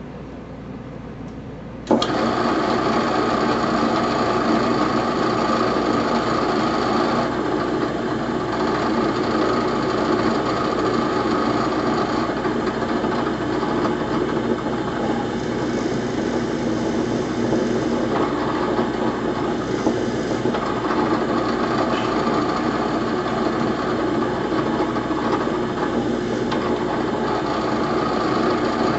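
Electric drill boring a hole into the back of a wooden grand piano key to fit an added lead weight. The motor starts suddenly about two seconds in and runs steadily.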